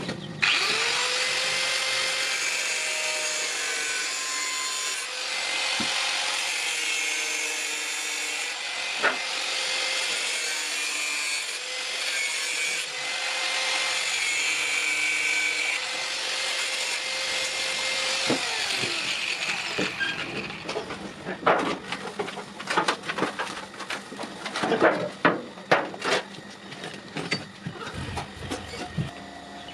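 A power tool running steadily under load for about eighteen seconds, then stopping; irregular knocks and clatter follow.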